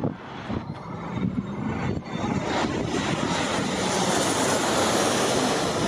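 Jet airliner on final approach to land, its engine noise swelling into a loud rushing roar as it closes in from about two seconds in.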